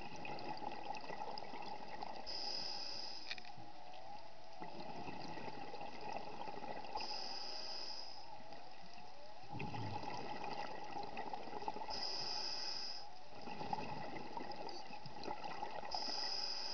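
An underwater diver breathing in a slow, even cycle, one breath about every five seconds: a short hiss on each inhale, then a rush of exhaled bubbles. A constant faint crackle runs underneath.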